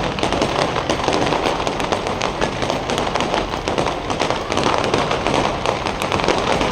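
A fireworks display going off: a dense, unbroken barrage of bangs and crackles.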